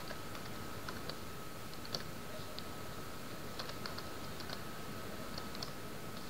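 Computer keyboard typing: light key clicks in a few short, scattered runs over a steady low hiss.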